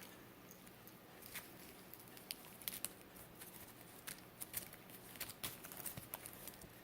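Kittens moving about: faint, irregular light clicks and rustles of small paws and claws, scattered through the whole stretch over a low steady background hum.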